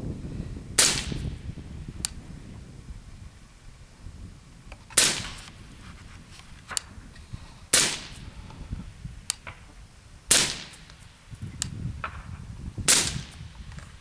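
Five suppressed rifle shots from an LWRC M6A5 SPR in 5.56 firing 77-grain Black Hills OTM through a YHM Phantom 7.62 suppressor. Each shot is a sharp crack with a short decaying tail; after the first the shots come about two and a half seconds apart. Fainter sharp clicks follow about a second and a half after three of the shots.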